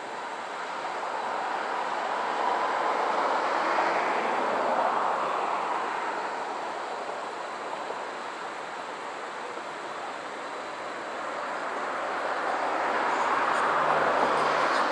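ACA Screamer dual-tone rotating warning siren sounding, its sound swelling and fading as it turns, loudest about four seconds in and again near the end.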